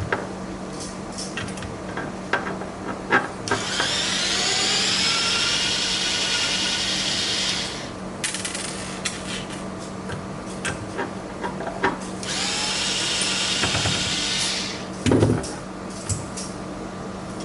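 Electric screwdriver running twice, each time for a few seconds, backing out the screws that hold a drone's motor mount to its arm; its whine rises as it spins up, then holds steady. Small clicks and knocks of handling the parts and screws come in between.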